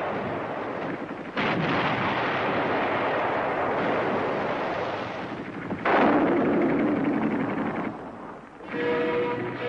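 Battle sound of dense gunfire and explosions, a continuous crackling din with a sudden louder burst about a second in and a stronger blast just before the six-second mark. Music comes in near the end.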